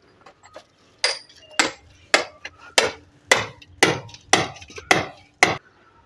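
Hand hammer blows striking and breaking out cracked concrete from a rooftop parapet pillar whose reinforcing bars have rusted inside, about nine sharp strikes roughly two a second.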